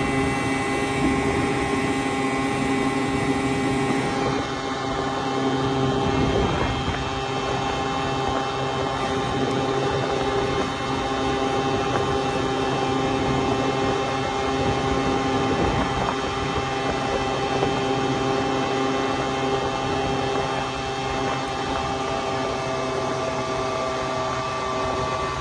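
Honda Spree scooter's small two-stroke single-cylinder engine running at a steady cruise with its pitch nearly constant, and wind rush over the microphone.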